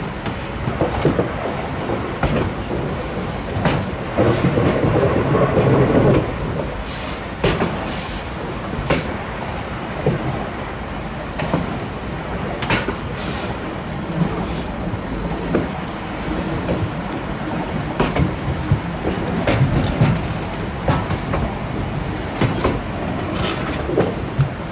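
Train running at low speed over station pointwork: a steady rumble of wheels on rail, broken by irregular clicks and knocks as the wheels cross switches and rail joints, with a louder stretch early on and a few brief high-pitched squeals partway through.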